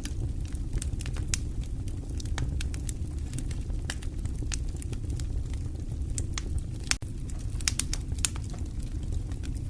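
Fire in a fireplace crackling: a steady low rumble of flames with irregular sharp pops scattered throughout, and a quick run of louder pops near the end.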